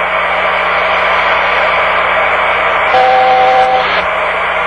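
Steady hiss of flight-deck background noise on a Boeing 747-249F's cockpit voice recorder, with a low hum underneath. About three seconds in, a steady two-note electronic tone sounds for just under a second.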